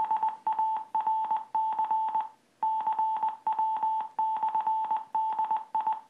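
Morse code sent at 20 words per minute: an 880 Hz tone keyed on and off in dots and dashes, played from a laptop through a speaker, each tone starting and stopping with a slight click. A short pause a little after two seconds in marks a space between words.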